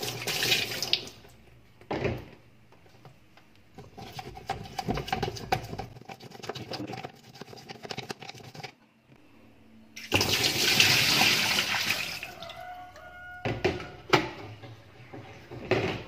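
Small brush scrubbing the grimy centre hub of a Sharp washing machine's plastic pulsator, in bursts of quick scratchy strokes. A louder, steadier rushing stretch comes from about ten to twelve seconds in.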